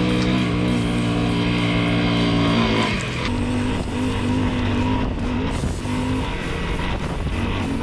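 Background music with held chords that change about three seconds in, over the steady running of a Honda CRF 250L's single-cylinder engine as the bike rides through sand.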